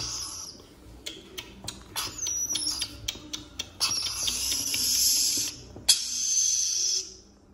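Moluccan lory chick giving harsh, hissing begging cries in several long stretches, with light rustles and clicks as it is handled on a cloth.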